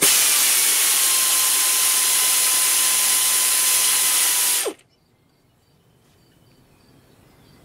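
Pneumatic air ratchet running steadily, then stopping suddenly about four and a half seconds in, as it runs in the alternator belt's tensioning bolt to tighten the belt.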